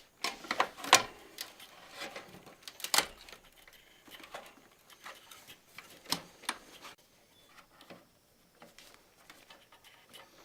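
Irregular clicks and knocks of hardware being handled as an all-in-one water cooler's radiator is fitted into a PC case. They are loudest in the first few seconds and thin out after about seven seconds.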